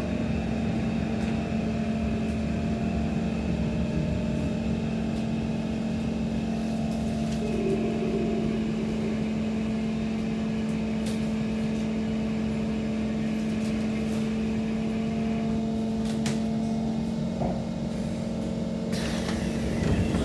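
Inside a Kawasaki–Kinki Sharyo C151 MRT train carriage: a steady low electrical hum with a few higher steady tones over rumble, and a brief burst of broad noise near the end.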